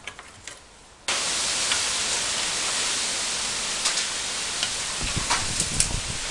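A loud, steady hiss starts abruptly about a second in, with a few light clicks over it.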